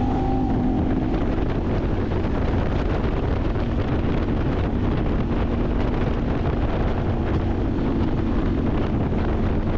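Side-by-side UTV driving with its engine running steadily, heavy wind buffeting the microphone.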